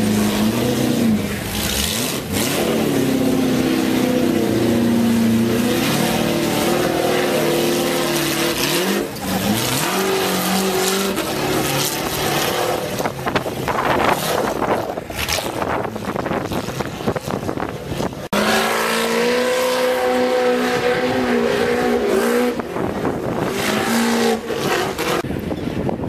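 Ultra4 off-road race car engines revving in bursts as the cars crawl over rocks, the pitch rising and falling with the throttle.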